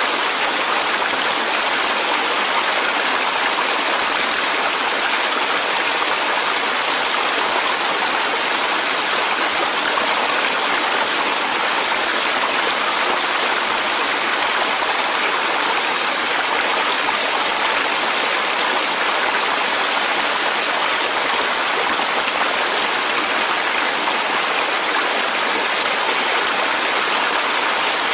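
Mountain valley stream: clear water running and splashing over rocks, a steady, even rushing.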